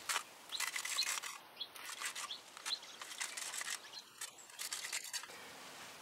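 Faint, irregular scratching of a small wire battery-terminal brush scrubbing rust out of door handle mounting holes.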